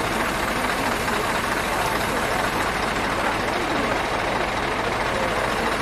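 Scania heavy truck's diesel engine idling steadily, with faint voices in the background.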